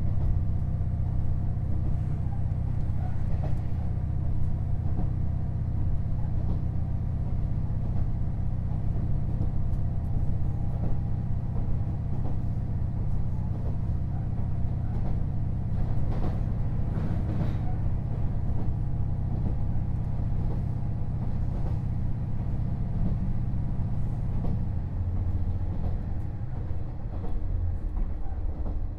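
Onboard running sound of a KiHa 48 500-series diesel railcar: a steady low diesel drone with wheel-on-rail noise, and a few clicks and knocks about halfway through.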